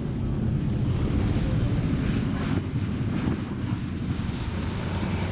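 Consolidated PBY Catalina amphibian landing, its twin radial engines running with a steady low rumble as it touches down on grass. Heavy wind buffeting on the microphone.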